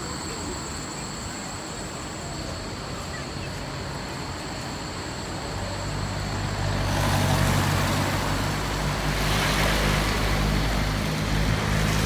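A motor vehicle's engine running close by: a low, steady hum comes in about halfway through and gets louder, with a rush of traffic noise.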